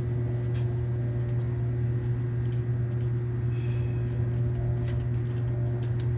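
A steady low hum, unchanging throughout, with a few faint light clicks.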